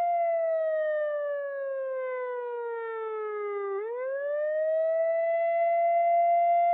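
Siren wail: one steady tone that slowly falls in pitch for nearly four seconds, then swoops quickly back up and holds.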